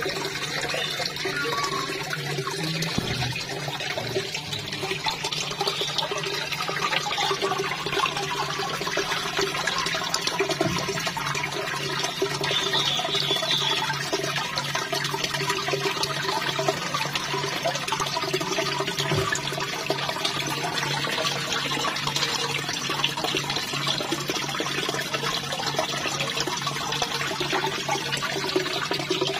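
Water pouring steadily into a koi pond, splashing and gurgling at the surface, with a low steady hum underneath.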